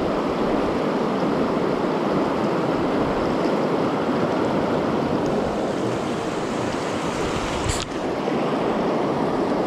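Fast river current rushing steadily around a wading angler's legs. A single sharp knock near the end as a hand bumps the camera.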